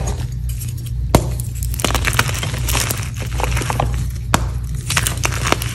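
Dyed gym chalk reforms crumbled and crushed between the fingers: dry, continuous crunching and crackling with a few sharp snaps as chunks break.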